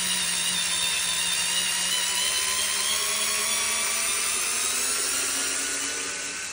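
WorkPro cordless electric screwdriver running steadily in reverse under load, backing a 4-inch construction screw out of wood against a little resistance. Its motor whine creeps slowly up in pitch and gets a little quieter near the end.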